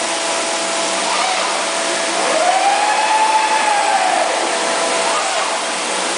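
Parpas XS-100 five-axis CNC machining centre running: a steady hiss with faint steady tones, and a machine whine that rises and falls once about two seconds in as the head moves.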